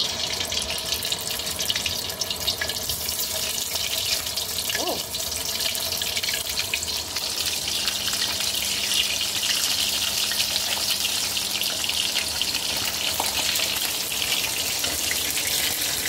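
Pieces of spice-marinated chicken frying in hot oil in a stainless steel wok: a steady crackling sizzle as more pieces are lowered in with tongs.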